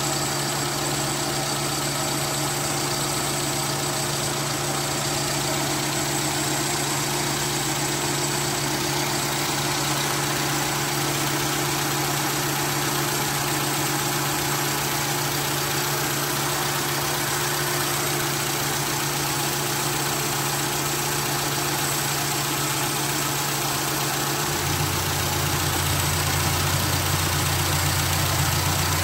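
Carbureted Suzuki Esteem 1.3-litre four-cylinder engine idling steadily after a rebuild with new oversize pistons and rings. Near the end its note drops lower and grows slightly louder.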